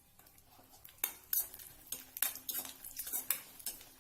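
A metal spatula scraping and knocking against a frying pan as garlic and dried red chillies are stirred in hot oil. The strokes are irregular, several a second, and begin about a second in.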